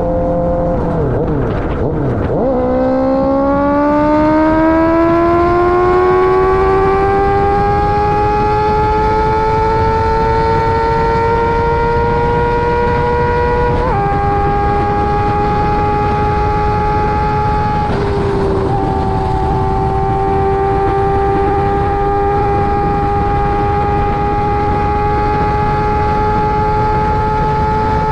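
Honda CBR650R inline-four engine through a KO Lightning aftermarket exhaust, under hard acceleration: after a brief dip, the note climbs steadily in pitch for about ten seconds. It then drops suddenly about halfway through and dips again briefly a few seconds later, before running at a steady pitch.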